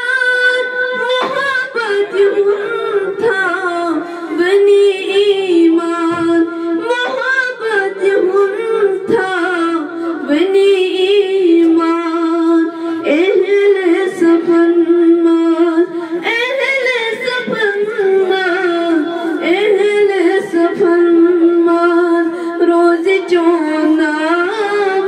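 A young woman singing a manqabat (a devotional praise poem) solo and unaccompanied. Her voice moves through long held notes with ornamented turns and slides.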